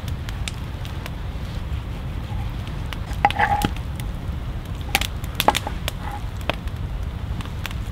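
Large knife chopping raw goose meat on a wooden cutting board, with a wet squishing as the minced meat is gathered up a little past three seconds in and sharp knife strikes on the board about five seconds in. A campfire crackles with scattered sharp pops over a steady low rumble.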